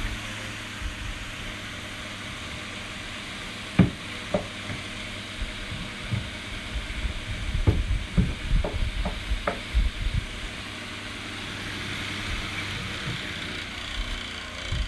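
West Point HP9 9-inch high velocity fan running with a steady rush of air, broken through the middle by irregular rattling knocks. The raggedy sound comes from its bad bearings.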